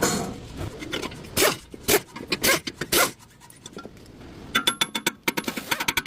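Metal tools working on a car's front wheel hub: a few sharp metallic knocks, then a fast run of ratcheting clicks with a metallic ring from about four and a half seconds in.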